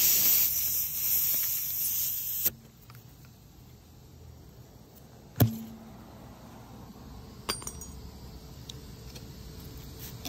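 Air hissing out of a punctured tire around the plug insertion tool, cutting off abruptly with a click about two and a half seconds in. A sharp snap follows about five and a half seconds in as the tool is pulled free, leaving the plug in the tread, then a few light clicks of a utility knife trimming the plug.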